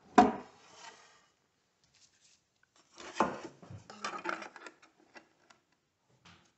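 A sharp knock as a wooden flooring board is set down against the miter saw. About three seconds in, the board scrapes and slides over the saw's table for a second or two, with a few light clicks.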